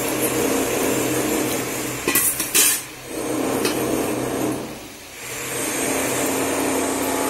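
Cooking oil poured into a kadhai, with a few sharp knocks and clinks of metal about two seconds in, over a steady background hiss.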